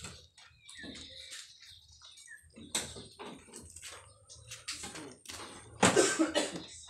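Gear being handled and set down on gravel: scattered clatters, knocks and crunching footsteps, with the loudest rattle and scrape near the end.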